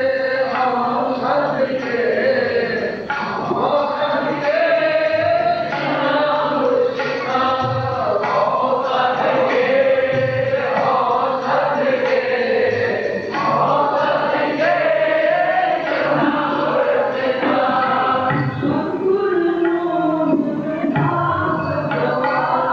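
Sikh shabad kirtan: men's voices singing a hymn together over a sustained harmonium, with tabla drumming the rhythm.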